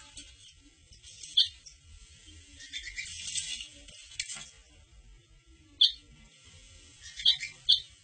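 Short, high chirping sound effects from a cat-game app playing on a smartphone's speaker: four separate chirps, two of them close together near the end, with a brief hissy rustle in the middle.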